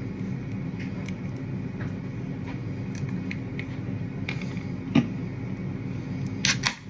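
The screw cap of a miniature Fireball bottle is twisted off with a few small clicks, and there is a sharper click about five seconds in. Near the end, the ring-pull of an aluminium cider can cracks open in a short, sharp burst. A steady low hum runs underneath throughout.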